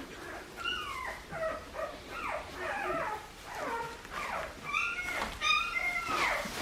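A litter of four-week-old Australian Shepherd puppies whining and yipping, many short cries overlapping, each sliding down in pitch.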